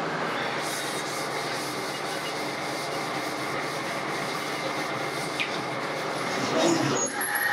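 Steady, dense rushing workshop noise with no clear rhythm. A steady high whine comes in near the end.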